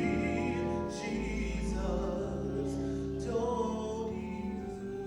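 Gospel music in a church: long held chords over changing bass notes, with some singing.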